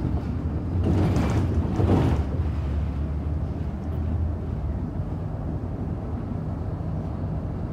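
City bus driving, heard from inside the cabin: a steady low engine drone with road noise, and a louder rushing swell that rises about a second in and dies away by about two seconds.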